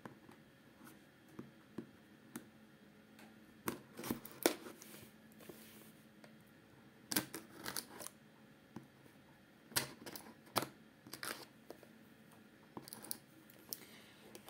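Scissors cutting open the seals of a cardboard card box: a series of short, irregularly spaced snips and scrapes, with light rustling of the cardboard.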